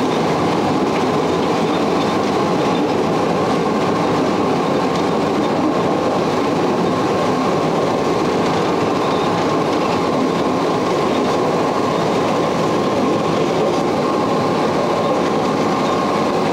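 Sécheron T9 electric locomotive under way, heard from inside its cab: a steady rumble and rattle of the running gear on the rails, with a faint steady whine held throughout.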